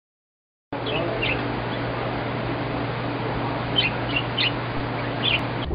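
Budgerigars chirping in short, scattered calls over a steady hiss and low hum, starting suddenly just under a second in.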